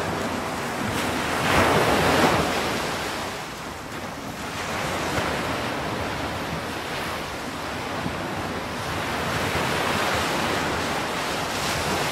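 Ocean surf: a steady rush of waves washing, swelling about two seconds in and again near the end.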